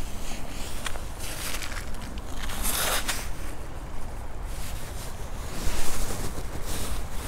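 A spinning reel being cranked and the rod handled, with rustling, over wind rumbling on the microphone.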